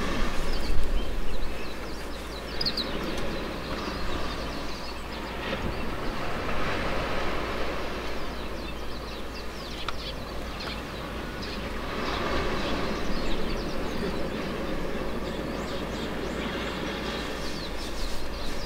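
Outdoor ambience: a steady low rumble and hiss that swells gently, with a few faint bird chirps about three seconds in.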